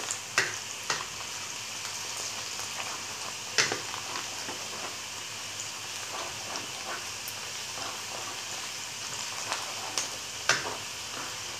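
Sliced onions frying in plenty of hot oil, a steady sizzle, stirred with a spatula, with a few sharp clicks now and then. The onions are frying toward golden brown.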